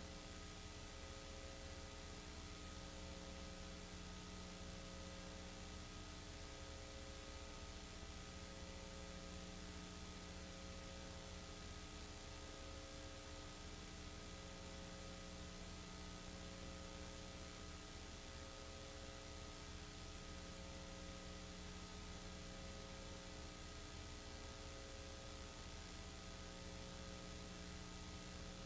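Steady electrical hum and hiss with no other sound: the noise floor of a silent home-movie transfer. A faint tone in the hum comes and goes about every second and a half.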